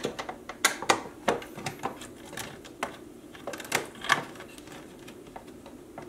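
Screwdriver backing out the power-supply mounting screw inside a desktop PC's sheet-metal case: irregular small metallic clicks and taps, a few louder ones about a second in and again around four seconds in.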